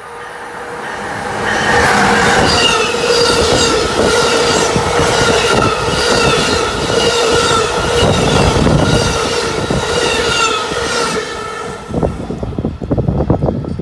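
Amtrak Northeast Regional train, hauled by an ACS-64 electric locomotive, passing at speed on curved track: loud wheel-on-rail rumble with a steady squealing tone. About 11 seconds in the last car goes by and the sound drops off, leaving gusts of the train's wake buffeting the microphone.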